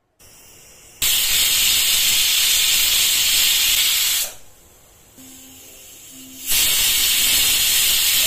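Pressure cooker whistle: steam jets from the weighted vent on the lid in two loud, even hissing blasts of about three and two seconds, with a softer hiss of escaping steam between them. The cooker has come up to pressure, and each whistle counts off cooking time.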